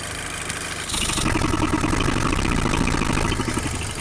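VW 2.0T FSI (EA113) four-cylinder engine idling. About a second in, the oil filler cap comes off with a short hiss of air, and the idle turns louder and rough, stumbling and hesitating: unmetered air is entering through the open filler past the mass airflow sensor. The cap comes off easily, with little vacuum holding it, a sign that the new PCV valve is working.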